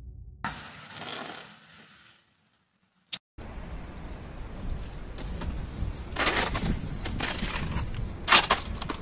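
Outdoor noise that fades out into a brief silence. After a single click, a steady hiss of noise carries several sharp crunching cracks of ice, the loudest near the end.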